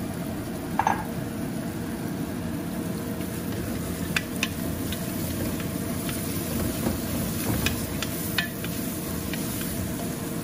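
Sliced onions sizzling as they fry in an aluminium pressure cooker, stirred with a wooden spoon that scrapes through them and knocks against the pot a few times.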